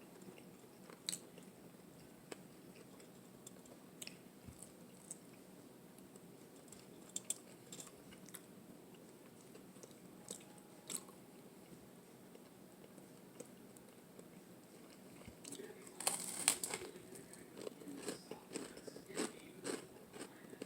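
Close-up eating sounds from a person eating a tuna melt sandwich: scattered soft mouth clicks while chewing, then a busier run of crunchy bites and chewing in the last few seconds.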